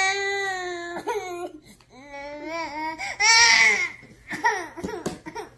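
A baby girl crying: one long held wail, then wavering cries, with the loudest wail about three seconds in, breaking into short sobbing cries near the end.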